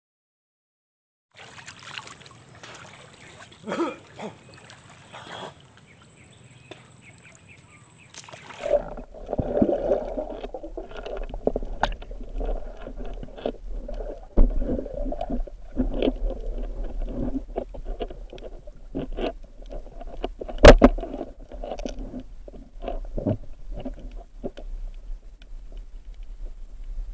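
Water noise with many irregular clicks and knocks, as heard from a camera in the water. A faint high steady tone sounds in the first part. From about nine seconds in, a low hum and busier sloshing take over, with one sharp loud knock near the end.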